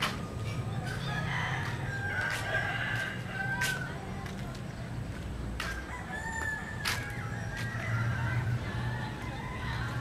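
Rooster crowing, with several long held calls, the clearest between about one and four seconds in and again around six seconds. A steady low rumble and scattered sharp clicks sit underneath.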